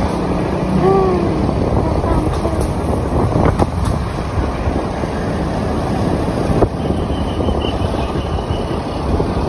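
Steady wind rush on the microphone with engine and road noise from a moving motor scooter.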